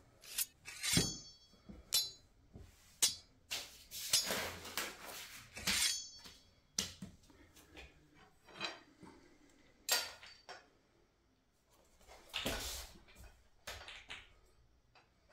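Steel tubes and fittings of an IKEA RIGGA clothes rack clinking and knocking as they are handled and fitted together: about a dozen sharp clinks, several with a short metallic ring, with a quiet spell shortly before the end.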